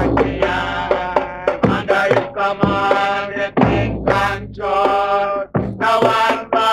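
Voices singing a Rastafarian chant with drums, the sung notes held and sliding.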